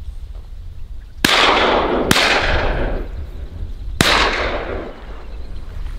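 Three shotgun shots, the second about a second after the first and the third about two seconds later, each followed by a long fading tail.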